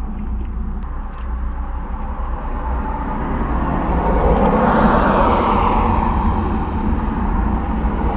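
A road vehicle passing by: its noise swells to a peak about five seconds in, dropping in pitch as it goes past, then fades. Under it is a steady low rumble.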